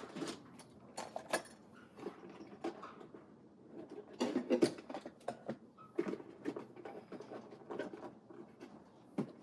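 Scattered light clicks, taps and rattles of small items being handled and taken out of an old Craftsman tool box, with a busier clatter about four seconds in.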